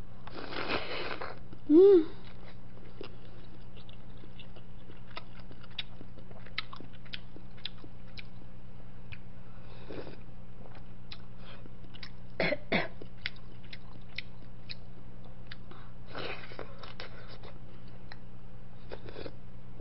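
A person eating fish cake and drinking fish-cake broth from a bowl: slurps, swallowing and small mouth clicks. A short, loud throaty sound comes about two seconds in, and a steady low hum runs underneath.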